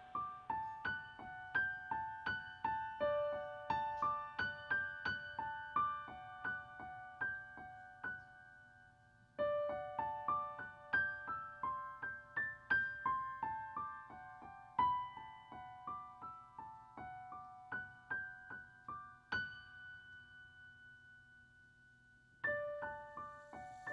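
Live keyboard music: a repeating melodic figure of single struck notes, each ringing and fading. The phrase breaks off briefly twice, thins to a few slow notes, and then starts again near the end.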